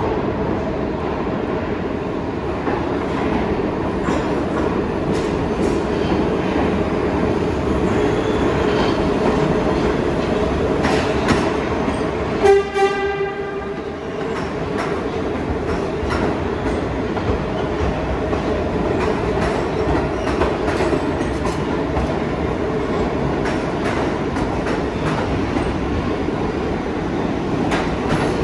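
New York City subway train running, a steady rumble with wheels clicking over the rails. A short horn sounds twice about halfway through.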